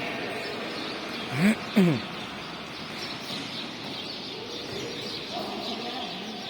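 Birds chirping over a steady outdoor background hum. About one and a half seconds in come two short, loud, low voice-like sounds, the first rising in pitch and the second falling.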